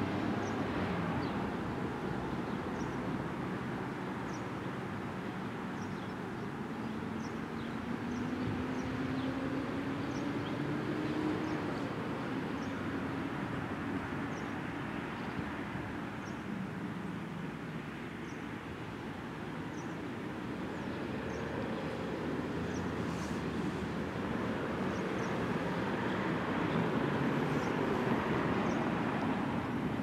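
Road traffic: a steady wash of vehicle noise, with one engine rising in pitch for a few seconds about a third of the way in, and faint high chirps now and then.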